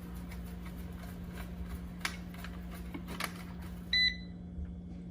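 Eufy RoboVac 15C Max robot vacuum running as it returns to its charging base, with a couple of light clicks, then a short beep about four seconds in, after which its running noise stops: the vacuum has docked and begun charging.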